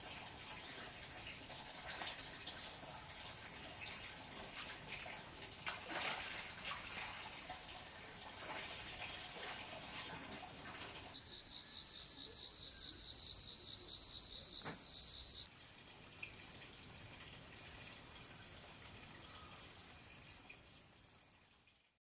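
Insects droning in a steady high-pitched chorus, with a few faint clicks. About halfway through, a louder pulsing insect call cuts in for about four seconds, then the drone fades out at the end.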